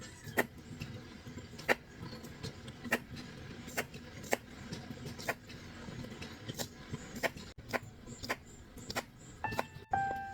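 Irregular light clicks and knocks, about one a second, like small objects being handled, over a faint steady background. A few musical notes come in near the end.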